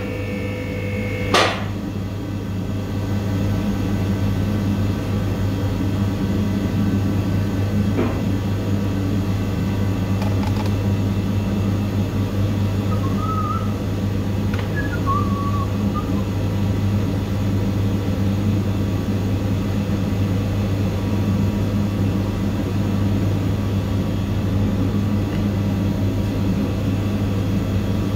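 A steady low electrical or mechanical hum, like a fan or heater running. A couple of light clicks come near the start and one about eight seconds in.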